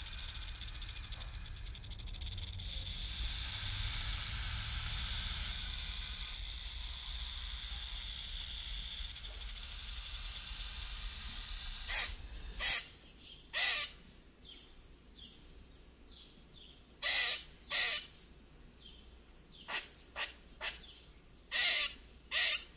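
A snake hissing steadily for about twelve seconds, then stopping. After it, a palm squirrel gives a series of short, sharp calls, several in pairs.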